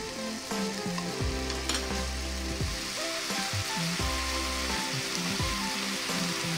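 Thinly sliced marinated beef sizzling steadily as it fries in a pan, stirred with chopsticks.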